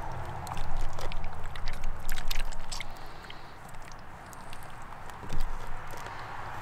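Wet clicks and squishes of raw octopus flesh being cut and handled, thickest in the first few seconds and sparser after.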